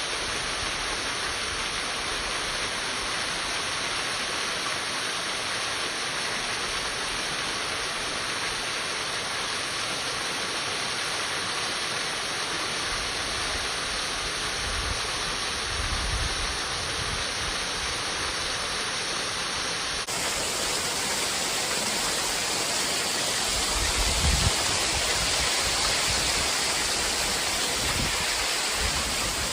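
Creek water rushing steadily over small cascades; the rush becomes somewhat louder and brighter about two-thirds of the way through. A few low thumps sound near the middle and near the end.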